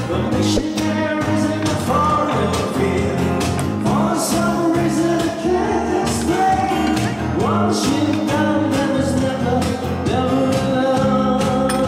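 A live band playing a rock-style song with a singer, accompanied by guitars.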